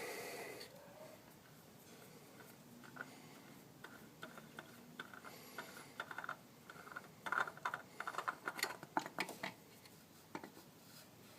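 Oil filter being unscrewed by hand: faint, scattered small clicks and taps, growing busier about two-thirds of the way in.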